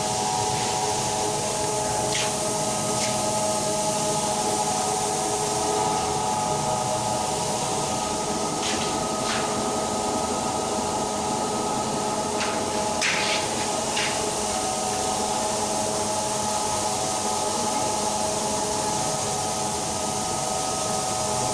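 Vacuum cleaner motor running steadily with a whine over a rushing hiss, with a few brief clicks and knocks now and then.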